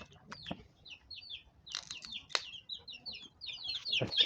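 Domestic chickens with small chicks calling: a steady run of short, high peeps and chirps, broken by a couple of sharper clucks.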